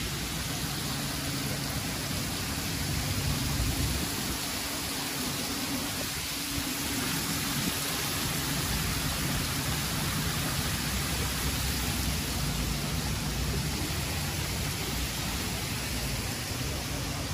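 Steady rush of flowing water, with a low rumble underneath that weakens for a couple of seconds near the start and then returns.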